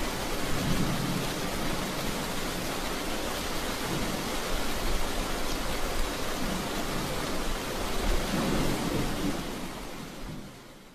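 Steady heavy rain, an even hiss that fades out near the end.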